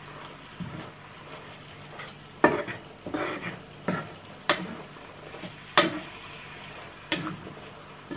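Chicken pieces sizzling in butter and teriyaki sauce in a frying pan while being stirred with a wooden spatula, which knocks and scrapes against the pan about five times.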